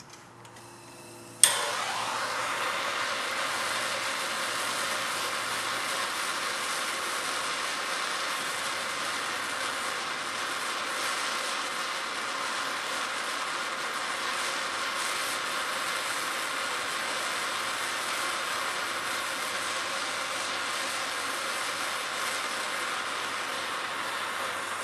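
Handheld gas torch lit with a sharp pop about a second and a half in, then burning with a steady hiss.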